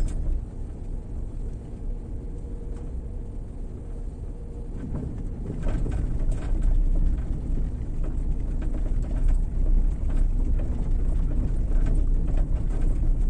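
Low, steady rumble of a vehicle on the move, growing louder about five seconds in.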